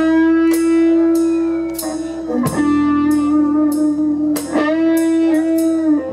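Blues band playing live: an electric guitar holds long sustained lead notes over the band, changing note twice, with regular sharp hits about twice a second.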